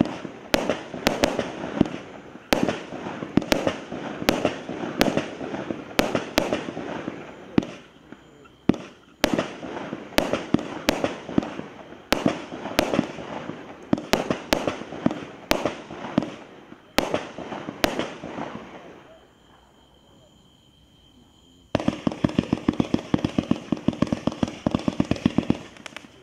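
Thunder Dragon 107-shot single-ignition firework cake firing: sharp reports about one or two a second, each trailed by the noise of its burst overhead. After a short pause of a couple of seconds, a fast volley of many shots fires in quick succession.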